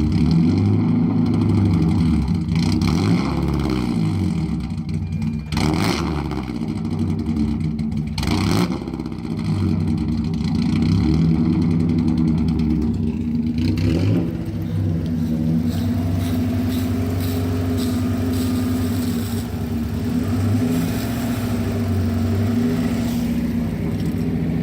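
Mazda Miata four-cylinder engine running and being revved while Seafoam cleaner is drawn into it through a vacuum line; the pitch rises and falls in the first few seconds, then holds steadier. A few sharp knocks along the way.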